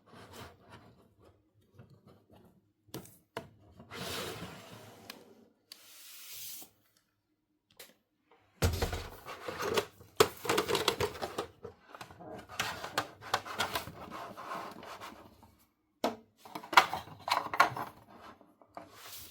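Hands handling and rubbing small plastic toy pieces and packaging, with scattered taps, rustles and light clatter; the busiest handling runs through the second half.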